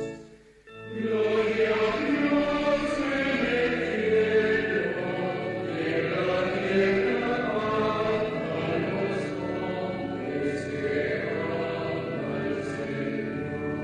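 Choral music: many voices chanting together, coming in about a second in after a brief drop, with held tones underneath that carry on at the end.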